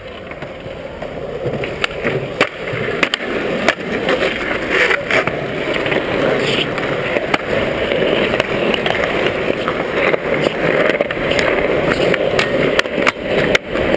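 Skateboard wheels rolling over concrete: a steady rumble that builds over the first few seconds and holds, with repeated sharp clacks of the boards.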